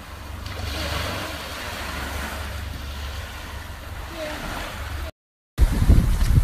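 Steady low wind rumble on a phone microphone at a sandy beach, with a faint voice in the background. Near the end the sound cuts out briefly, then a much louder rumble of wind and a moving boat starts.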